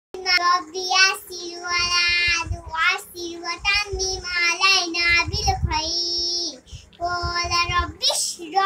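A young girl singing in a high voice, a chant of held notes broken by short pauses.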